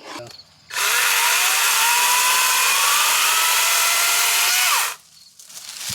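Wild Badger 40V cordless battery chainsaw cutting through a piece of wood, its motor pitch rising steadily for about four seconds, then stopping abruptly as the piece is cut right off.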